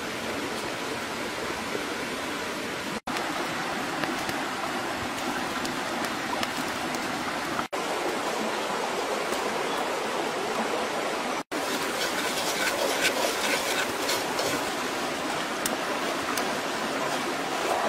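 A forest stream running over rocks: a steady rushing of water, broken by three brief dropouts at edit cuts. Faint short clicks sit on top of it in the second half.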